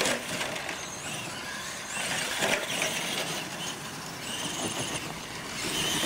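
Radio-controlled monster trucks racing on dirt: their motors and gears whine, rising and falling with the throttle, with clattering knocks as they hit ramps and toy cars, loudest about two and a half seconds in and again near the end.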